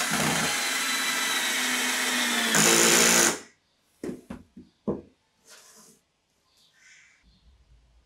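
Cordless drill driving a screw into plywood, running steadily for about three seconds and getting louder with a change of pitch just before it stops. A few short knocks follow.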